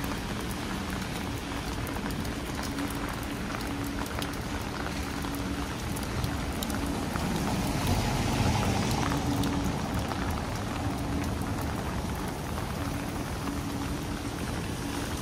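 Heavy rain pattering on an umbrella, many drops ticking over a steady rushing downpour, with a faint low city hum beneath. The rushing grows louder for a couple of seconds around the middle, then settles back.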